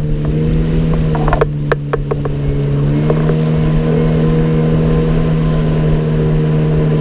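River longboat's outboard motor running steadily under way, its note dipping slightly and picking back up about three seconds in. A few sharp knocks sound around a second and a half to two seconds in.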